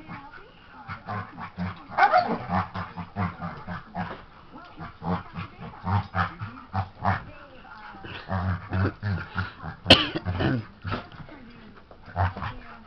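Golden retriever and boxer puppy play-fighting: dog vocal noises in many short bouts with scuffling, and one sharp knock about ten seconds in.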